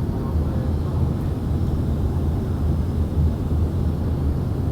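Steady low rumble of an airliner's cabin noise in flight during its descent to land.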